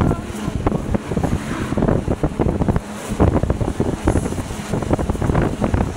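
Wind buffeting the microphone of a moving vehicle, in rapid uneven gusts, with road noise underneath.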